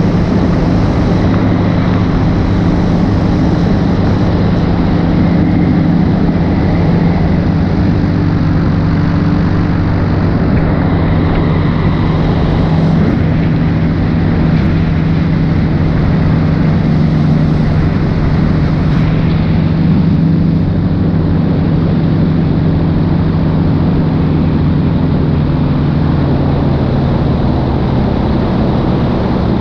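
Paramotor engine and propeller running steadily in flight at a constant pitch, heard from on board.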